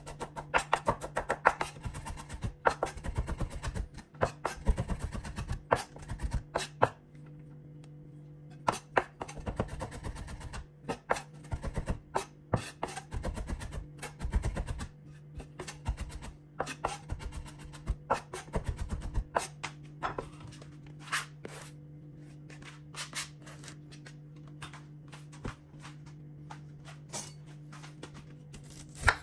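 Chef's knife chopping garlic on a wooden cutting board: quick runs of knocks for most of the first twenty seconds, then slower, spaced cuts. Background music plays under it.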